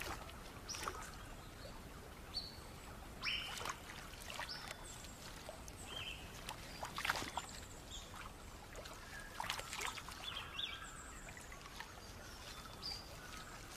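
Small splashes and drips of river water as a net is handled in the water, with scattered short, sharp splashes over a light trickle.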